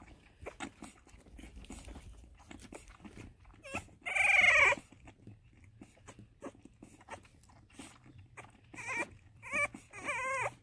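French bulldog puppy suckling milk from a feeding bottle, with rapid small wet clicks and smacks. It gives one loud, high whine about four seconds in and a few shorter whines near the end.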